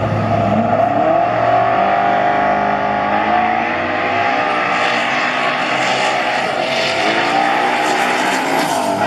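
Drag-racing cars' engines accelerating hard down the strip: the engine note climbs steeply in the first second, then holds loud and steady at high revs.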